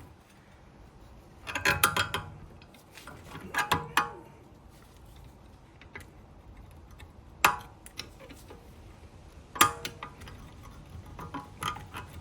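Metal clicks and clinks of brake pad clips being prised out of a BMW X1 E84 front brake caliper with a screwdriver. A short clatter comes about two seconds in and another near four seconds, then single sharp clicks at about seven and a half and ten seconds, and lighter ticks near the end.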